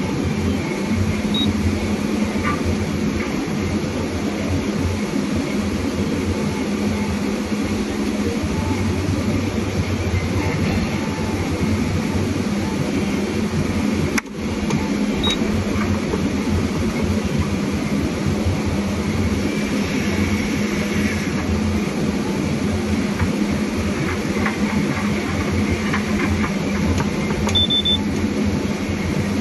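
Steady drone of a forestry harvester's diesel engine and hydraulics working a processor head, heard from inside the cab, with a brief break about halfway through and a short electronic beep near the end.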